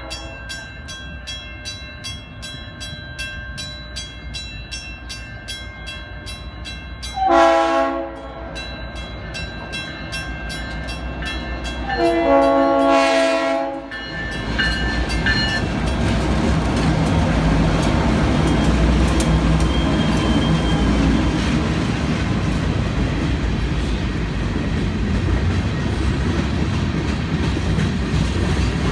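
A grade-crossing bell rings steadily as an approaching CSOR freight train sounds its diesel locomotive's multi-note horn twice, briefly about seven seconds in and for about two seconds around twelve seconds in. From about fourteen seconds in, the locomotive rumbles over the crossing and the freight cars follow with a steady clatter of wheels on the rails.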